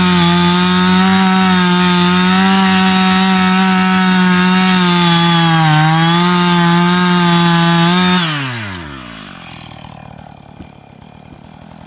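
Chainsaw engine held at high revs, its pitch dipping briefly about six seconds in, then the throttle is let off about eight seconds in and the engine winds down quickly.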